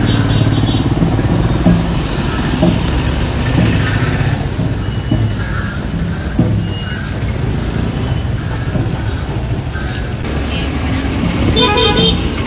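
Street traffic: vehicle engines running steadily, with short horn toots, the clearest one near the end.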